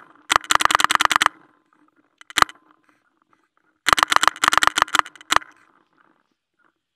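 Paintball marker firing rapid strings of shots, about ten a second: one string, a single shot, then a second string that stops a little over halfway through.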